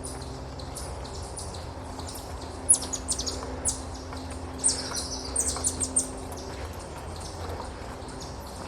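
Wild songbirds chirping: quick, very high, thin notes, with a dense flurry of calls in the middle.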